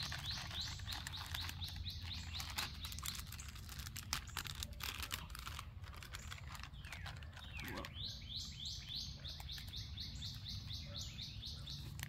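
A songbird singing a fast series of short rising chirps, about four or five a second, once at the start and again from about eight seconds in, with faint clicks in between.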